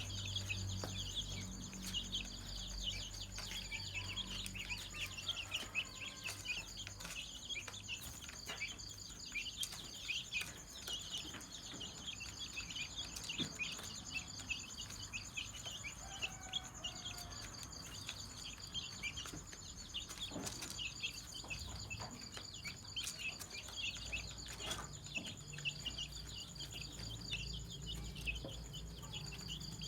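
A brood of domestic chicks peeping continuously: many short, high cheeps overlapping, over a steady high-pitched trill.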